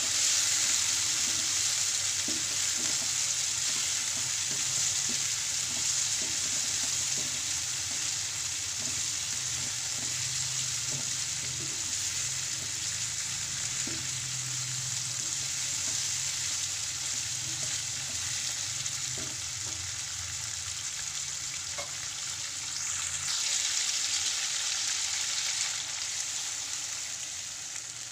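Chicken pieces sizzling steadily in spice paste in a ceramic-coated frying pan, with a spatula stirring and scraping against the pan in small clicks.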